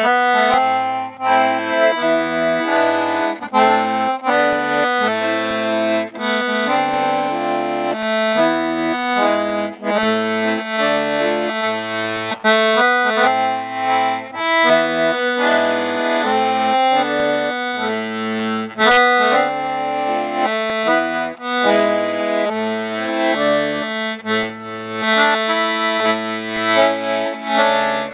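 Accordion playing a Swedish song: a melody and sustained chords over bass notes that change in a steady rhythm.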